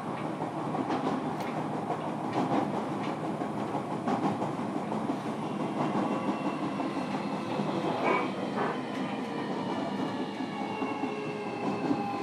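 Inside a JR Kyushu 305 series electric train car, the wheels click over rail joints under the running noise. The Toshiba PMSM inverter's motor whine, several tones together, sinks slowly in pitch from about five seconds in as the train slows.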